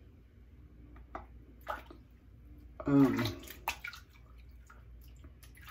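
Water running and splashing in a bathroom sink, with a few light clicks; the loudest burst comes about three seconds in.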